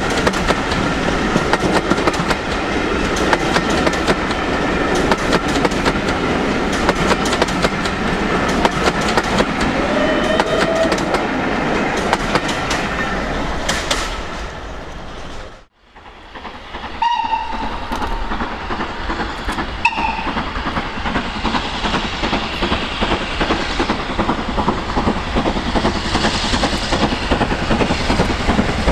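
Steam-hauled train passing close by, wheels clattering rhythmically over the rail joints. About halfway through the sound drops out to silence, then another train passage fades back in, with a few short high tones.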